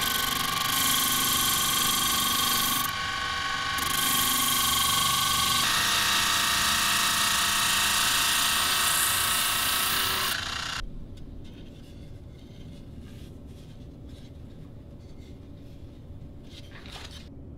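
Drill press spinning a sanding drum: a steady motor whine with the hiss of the abrasive grinding excess epoxy and wood off a laminated walnut-and-maple bentwood hoop. About ten seconds in the sanding stops, leaving a much quieter hiss with faint scattered ticks.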